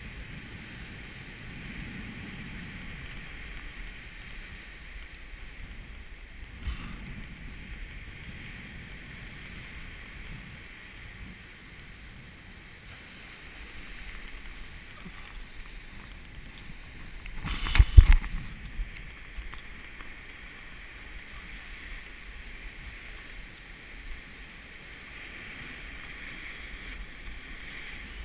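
Surf breaking and washing over coastal rocks, with wind buffeting the microphone in a low rumble. A cluster of sharp knocks about eighteen seconds in is the loudest sound, and a single smaller knock comes about seven seconds in.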